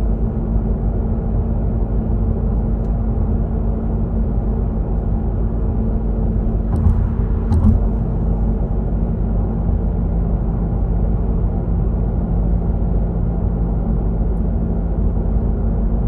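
Mazda CX-3 underway: a steady low rumble of road and engine noise carrying a constant droning hum, the booming noise being checked after a repair. Two short thumps come about halfway through.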